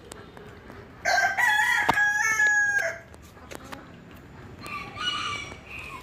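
Bantam rooster crowing once, a loud call of about two seconds, followed near the end by a shorter, fainter call.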